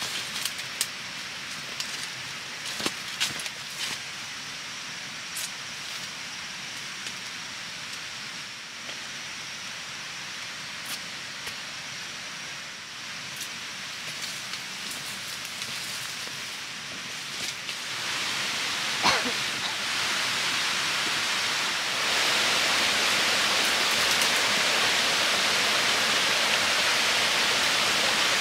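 Twigs and leaves snapping and rustling underfoot in forest undergrowth, in scattered cracks. About two-thirds of the way in, a steady rush of flowing stream water swells up and then holds, becoming the loudest sound.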